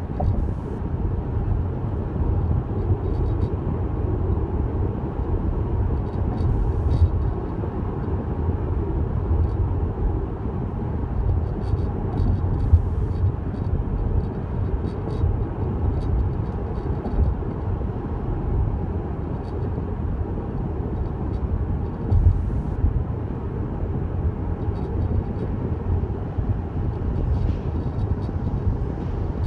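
Steady road rumble inside a new Tesla Model S's cabin while it is driving, with faint, irregular short clicks or rattles from the dashboard, an unwanted noise the owner wants fixed.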